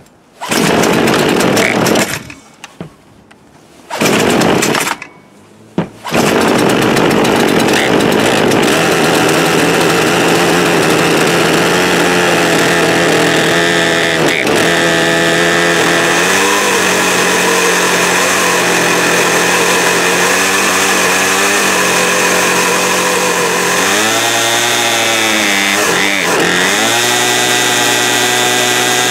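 Poulan Pro PP4218A 42cc two-stroke chainsaw being started: two short bursts of firing in the first few seconds, then it catches about six seconds in and runs on steadily. Its engine speed wavers and dips a few times near the end before settling.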